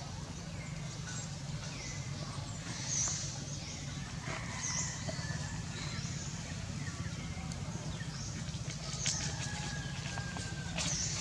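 Outdoor ambience: a steady low rumble with a few short, high chirps now and then, and a patch of light clicking and rustling near the end, fitting small hands picking through dry leaf litter.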